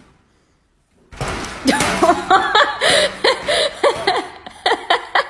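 A person laughing hard in quick bursts, starting about a second in, with knocking from the pet door's flap.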